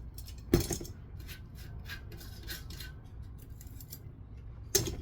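Metal tools clinking against a bicycle cassette as the cassette tool and chain whip are worked on it: a sharp knock about half a second in, light metallic clicks and ticks, then another knock near the end.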